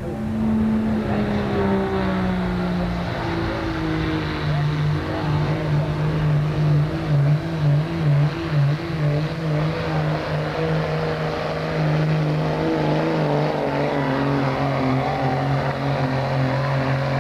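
Red Dodge Ram diesel pickup's engine at full throttle under load as it drags a pulling sled down the track. The steady drone drops in pitch a few seconds in, pulses unevenly for a few seconds in the middle, then holds lower toward the end.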